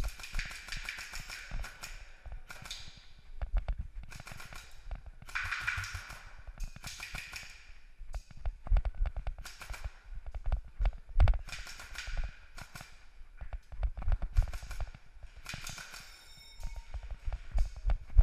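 AR-style airsoft rifle firing single shots and quick strings of shots in irregular clusters, with low thumps in between.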